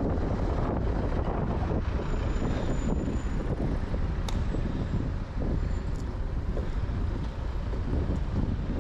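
Wind rushing and buffeting over the microphone of a moving bicycle, a steady low rumble, with a single sharp click about four seconds in.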